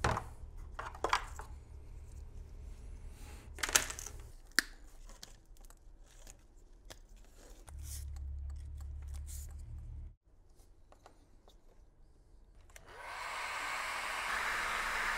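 Electric heat gun blowing steadily near the end, shrinking heat-shrink tubing over freshly soldered headlight wiring. Before it come scattered clicks and knocks of a plastic headlight housing being handled on a metal bench.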